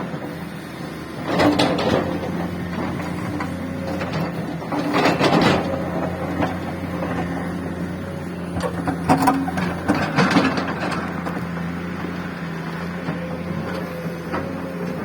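Road-construction machinery engine running steadily, with louder surges of mechanical noise about a second and a half in, around five seconds in, and again around nine to ten seconds in.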